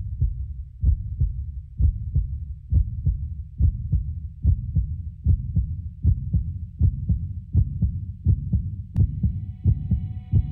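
Electronic soundtrack opening on a low, heartbeat-like double thump repeating about once a second. Near the end comes a sharp tick, and faint synth tones begin to sound.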